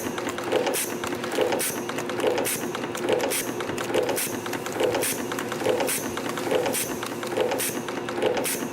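YHM CT-210 CNC spring-forming machine running, coiling 0.8 mm wire into small heating-element coils. It works in a regular cycle of about one spring every 0.85 seconds, each cycle a whirring swell with a short hiss and fast ticking over a steady motor hum.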